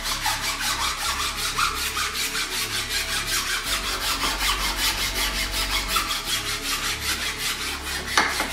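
Flat metal file rasping back and forth in a slot cut in plywood, smoothing the slot's walls in rapid, even strokes, with a sharp knock near the end.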